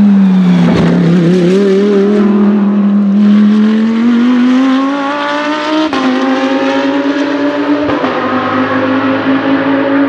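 Audi R8 LMS race car's 5.2-litre V10 held at low revs, then accelerating with a steadily rising pitch. A sudden drop about six seconds in marks an upshift, after which the engine runs on at steadier revs, a little fainter as the car moves away.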